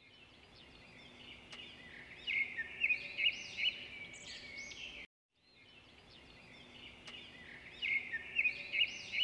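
Birds chirping and twittering over a steady high hiss, building to a run of louder chirps and whistles; it cuts off abruptly about five seconds in and the same passage starts over, like a looped background track.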